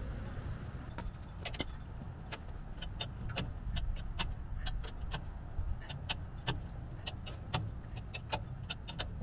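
Irregular light metallic clicks and clinks, two or three a second, from tools and parts being handled during disassembly, over a steady low rumble.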